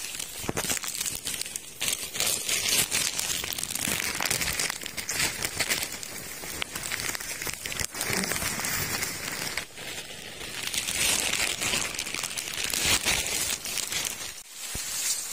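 Footsteps crunching and rustling through leaf litter and undergrowth on a steep downhill forest path, with a dense, irregular crackling.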